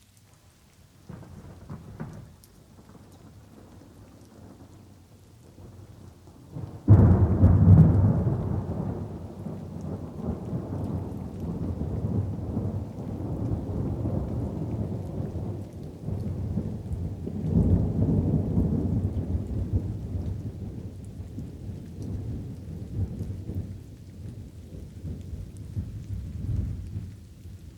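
Thunder rolling over light rain: a faint rumble about a second in, then a sudden loud clap about seven seconds in that rolls on, swells again a little past halfway and fades near the end.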